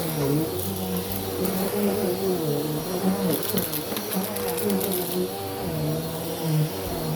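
Bissell vacuum cleaner running over carpet, its motor hum wavering up and down in pitch as it is pushed back and forth. A brief patch of rapid ticking comes about three seconds in.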